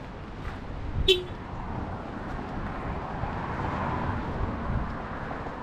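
Road traffic: a car passing, its tyre and engine noise swelling to a peak about three to four seconds in and then easing off, over a steady low rumble. There is a short sharp sound about a second in.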